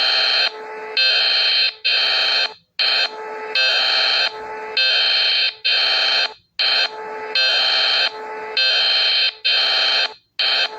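Czech emergency alert alarm: a loud electronic alarm tone sounding in blocks of about half a second, alternating louder and softer, broken by short silent gaps every two seconds or so.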